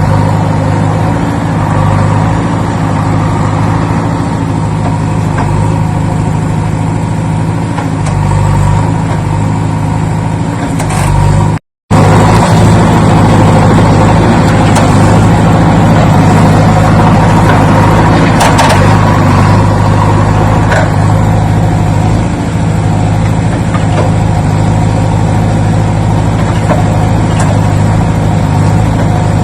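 A vehicle engine running steadily at an even low pitch, broken by an abrupt moment of silence about twelve seconds in where the sound cuts out and resumes.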